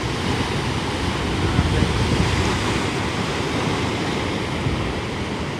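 Sea surf washing steadily against the shore, with wind buffeting the microphone in a low, gusty rumble.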